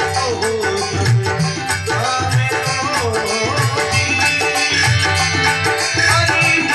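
Instrumental passage of a Marwari folk bhajan: a steady, quick drum rhythm with a wavering melody line over it.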